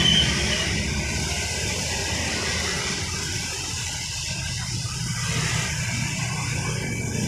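Road traffic at a wet junction: car, truck and motorcycle engines running at low speed over a steady hiss. The engine noise is louder at the very start and eases within the first second or so.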